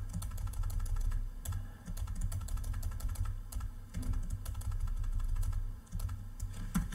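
Computer keyboard typing: quick, irregular key clicks as numbers are entered into a table, over a steady low hum.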